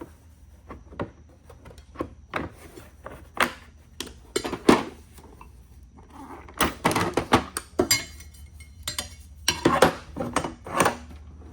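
Ratchet set and its case being handled: irregular clicks, knocks and metal clinks, with a few sharper knocks and two denser spells of clattering.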